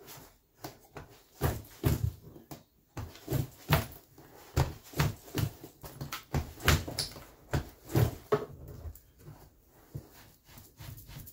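Carpet knee kicker being struck with the knee again and again: a string of thumps, about two a second, from about a second in until near the end. The carpet is being stretched onto the pins of the gripper strip.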